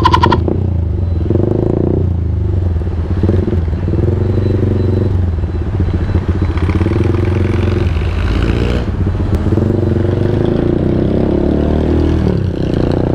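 Motorcycle engine running at low speed in heavy traffic, its pitch wavering up and down with small throttle changes. A brief rush of hissing noise passes about two-thirds of the way through.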